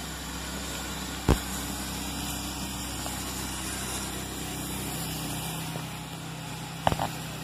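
GWR small prairie tank locomotive No. 5541 standing at the platform with a steady hiss of escaping steam. A single sharp knock comes about a second in, and a few clicks come near the end.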